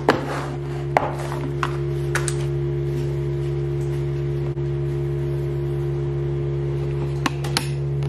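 A steady low hum of several held tones, with a few light clicks and taps from handling a plastic food box and salad toppings: one at the start, one about a second in, one a little after two seconds, and two close together near the end.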